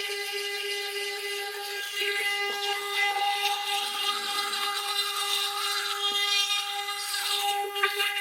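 Sonic electric toothbrush buzzing with a steady, high-pitched hum while brushing teeth. A scrubbing noise over the hum grows stronger from about two seconds in.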